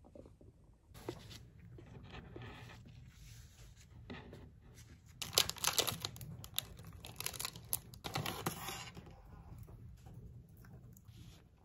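A foil-lined plastic snack bar wrapper being torn open and crinkled by hand, in crackling rustles that are loudest about five to six and a half seconds in and again around seven to nine seconds.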